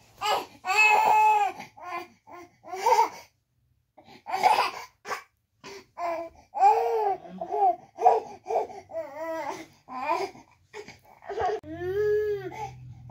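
A toddler babbling and laughing in short, high-pitched bursts, with a few crying-like wails.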